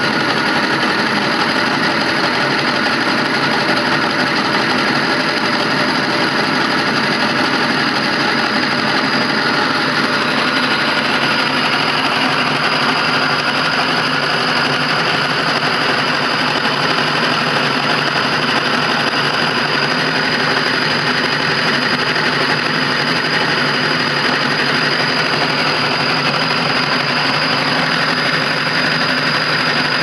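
Homemade generator rig running steadily: a three-phase LG washing machine motor, fed by a variable-frequency drive, turning six small generators, with a steady high whine over the running noise.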